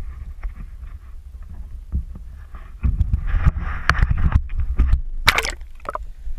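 Wind buffeting the microphone of a camera on the fishing line as it swings through the air, then a sharp splash about five seconds in as it hits the sea. After the splash the sound goes muffled under the water.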